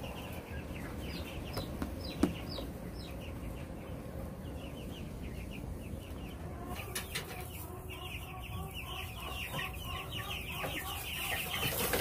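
Chickens clucking, a rapid run of short calls that grows busier in the second half.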